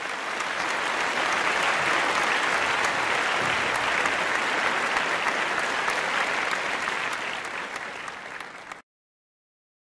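Audience applauding. The clapping swells over the first second, holds steady, eases slightly, then cuts off abruptly near the end.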